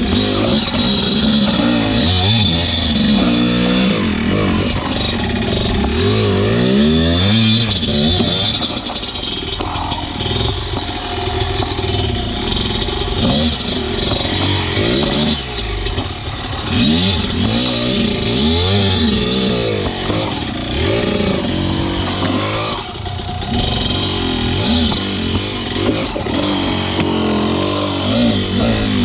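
Enduro motorcycle engine revving up and dropping back over and over, with a few short knocks along the way.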